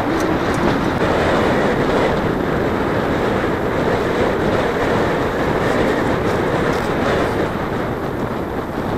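Strong wind blowing over the microphone: a steady, loud rushing noise.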